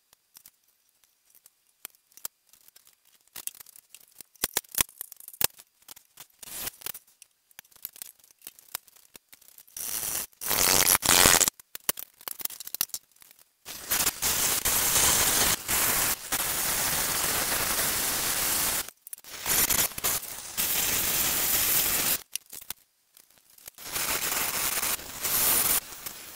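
Cordless Dremel rotary tool cutting a hole into a lamp base. First come scattered small clicks and knocks of handling. From about ten seconds in, the tool grinds in runs of a few seconds, stopping and starting again several times.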